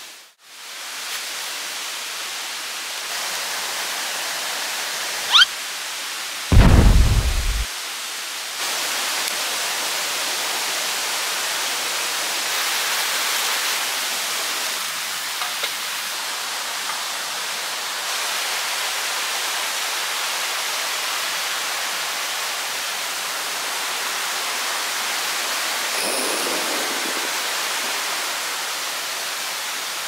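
Steady rushing of a valley stream, with a loud low rumble lasting about a second about six and a half seconds in.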